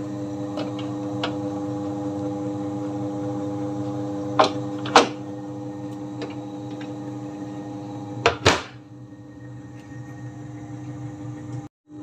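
Polytron top-loading washing machine running on its new universal control module: a steady motor hum with the tub turning, showing the machine now starts and spins. Two knocks about four and five seconds in and a louder bump about eight and a half seconds in as the plastic lid is handled and shut, after which the hum is quieter.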